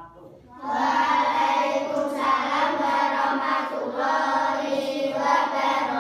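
A group of children singing together in unison, voices only with no instruments, starting a little under a second in.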